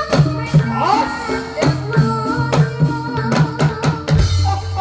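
Traditional Javanese percussion-ensemble music accompanying a barongan dance: a fast, even run of drum strokes that bend in pitch over struck and held instrument tones, with a deep low sound coming in near the end.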